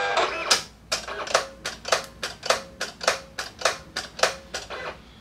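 Inkjet printer printing: a brief motor whine, then a regular clack about twice a second as the print head sweeps back and forth, stopping about four and a half seconds in.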